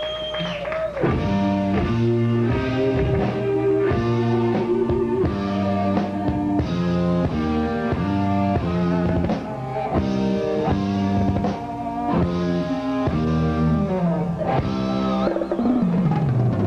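Rock band playing live: a held note breaks about a second in into a fast run of stepping notes over drums, likely electric guitar. Near the end the pitch slides down and leads into the drums.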